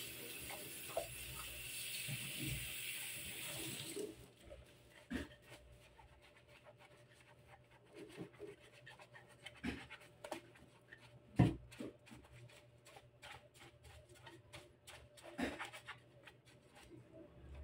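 Kitchen tap water running into a stainless steel sink, shut off about four seconds in. Then a soapy sponge scrubbing a clear plastic water filter housing, with short rubbing squeaks and a few light knocks of plastic.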